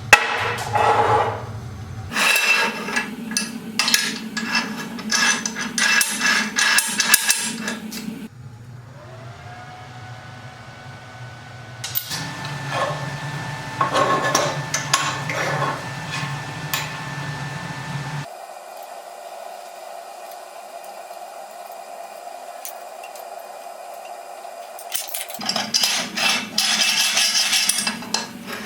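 Metalworking sounds: repeated clanks and scraping of steel parts and hand tools, alternating with an electric power tool whose motor spins up and then runs steadily.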